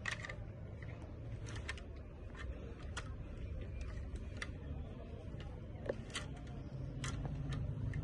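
Clear plastic clothes hangers clicking against each other and against a metal rail as garments are pushed along it, a scatter of irregular sharp clicks over a low background rumble.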